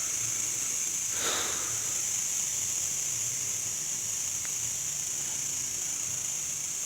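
A man breathing hard after climbing on foot, with one heavy breath about a second in. A steady high-pitched hiss runs underneath.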